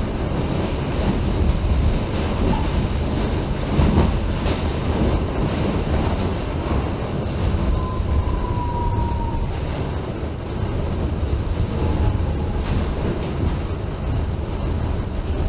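New York City Subway D train running on the rails, a steady loud rumble with a knock about four seconds in and a brief, faint, thin wheel squeal about eight seconds in.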